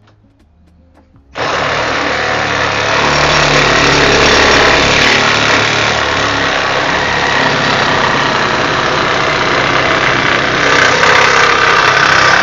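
Milwaukee M12 Hackzall (2420-20), a 12-volt brushed one-handed reciprocating saw, cutting through an old wooden fascia board. The cut starts suddenly about a second and a half in and runs on loud and steady.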